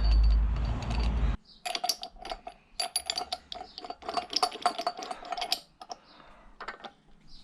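Ratchet wrench clicking in quick runs as the bolts of a flywheel puller are wound down into an outboard motor's flywheel. A low rumble fills the first second or so.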